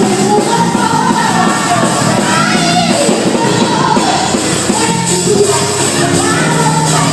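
Gospel song with a lead singer over a band accompaniment.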